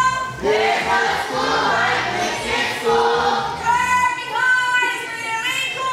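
A woman leading a group of children in singing, with high children's voices joining in on held, sung notes.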